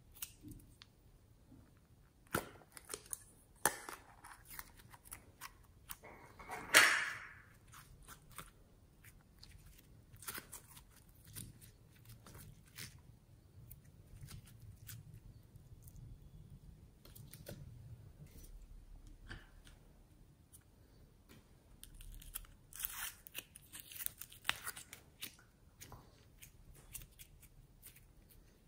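Hands handling a plastic tube of glitter and working slime: scattered crinkly clicks and taps, a louder crackling crinkle about a quarter of the way through, and a run of crackly tearing sounds as the slime is stretched and pulled apart near the end.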